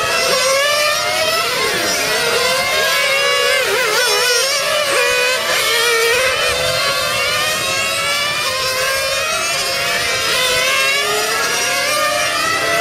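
Several 1/8-scale nitro on-road RC race cars' small glow engines running at high revs together, their pitches repeatedly climbing and dropping as the cars accelerate down the straights and brake for corners.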